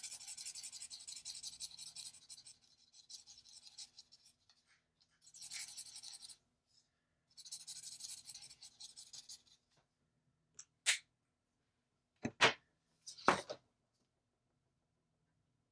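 Ohuhu alcohol marker nib stroking and rubbing across paper in several short bursts of coloring, then three brief sharp clicks near the end.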